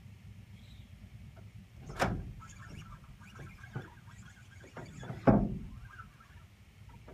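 Two heavy thumps on the boat deck, about three seconds apart, with faint light ticking of a spinning reel being cranked between and after them.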